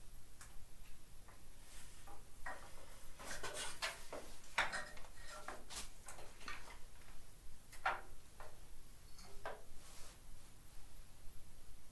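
Irregular light metallic clinks and knocks, like tools or metal parts being handled and set down, busiest a few seconds in; no grinder running.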